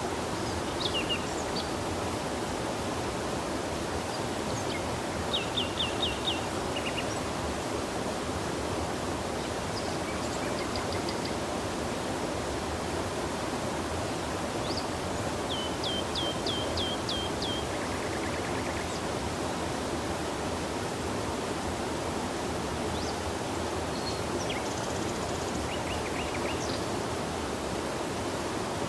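Steady rush of running river water. Small birds chirp over it several times, each call a quick run of short, high, downward-sweeping notes.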